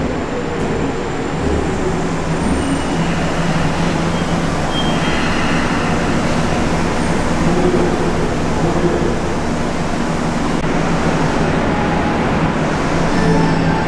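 Tōzai Line subway train moving at the station platform: a steady rumble of wheels on rail with a low, even motor hum.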